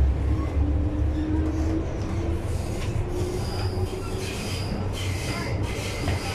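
MTR M-Train electric multiple unit heard from inside the car as it pulls away and gathers speed. A low rumble of wheels and car carries a traction motor whine that rises slowly in pitch. Thin, high wheel-on-rail squeals come in about halfway through.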